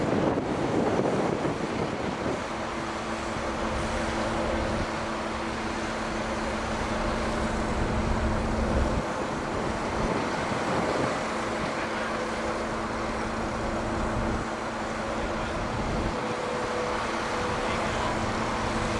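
Mobile crane's diesel engine running under load while it hoists a lattice tower section, a steady rumble with a steady hum that sets in about two seconds in.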